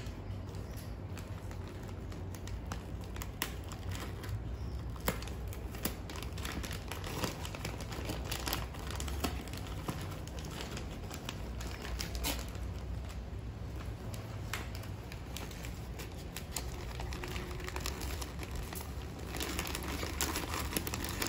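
Gift wrapping paper crinkling and rustling as it is handled and cut open with small scissors, with scattered sharp snips and crackles over a low steady hum.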